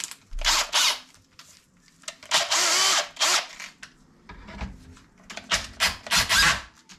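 Electric drill run in several short bursts, stopping and starting, with its chuck on a front suspension swivel that is being lapped in with grinding paste.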